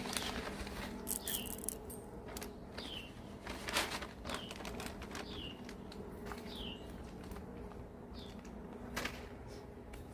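A bird repeating a short, falling high call every second or so, over intermittent rustling and scraping noises and a faint steady low hum.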